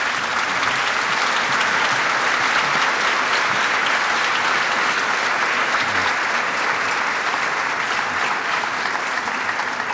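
Large audience applauding steadily: dense, even clapping that fills the hall.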